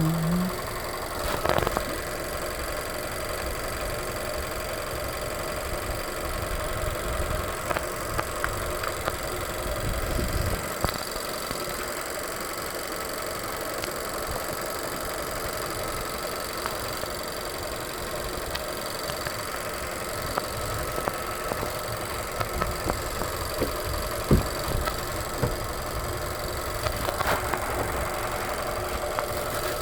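A 2020 Nissan Sentra's four-cylinder engine idling steadily, kept running while its battery is swapped. A few sharp clicks stand out over the idle, the loudest about twenty-four seconds in.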